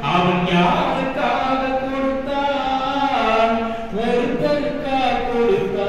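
A man's amplified voice through a microphone and loudspeaker, declaiming in a sing-song, chant-like delivery with long held vowels that step up and down in pitch.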